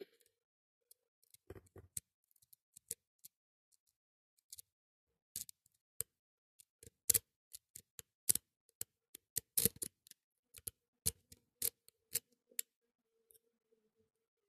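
Light, irregular metallic clicks of a wave rake being worked in the keyway of a vintage BKS brass pin-tumbler padlock under tension, raking the pins to get a full set. The clicks are sparse at first, come thick and loudest in the middle, and stop near the end.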